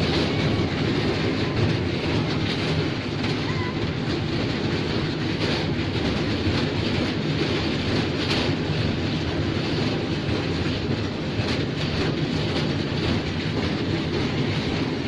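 Children's miniature park train ride running: a steady rumble and rattle from the moving car, with frequent light knocks.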